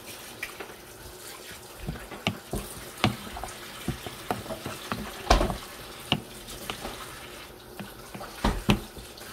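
Kitchen cooking sounds: a steady hiss under irregular clinks and knocks of utensils against cookware, the sharpest about halfway through and near the end.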